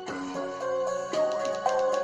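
Music with plucked, guitar-like melody notes playing from a JBL Charge 3 portable Bluetooth speaker.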